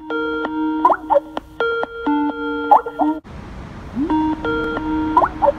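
Skype calling ringtone: a short melodic phrase of electronic tones ending in quick bubbly glides, repeated about every one and a half seconds as the call rings unanswered. A steady background hiss comes in about three seconds in.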